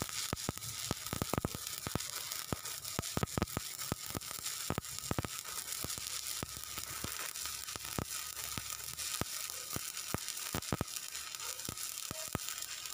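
Stick-welding arc burning an E7018 (LB7018) low-hydrogen electrode on a ductile iron pipe joint: a steady crackling hiss broken by frequent sharp pops.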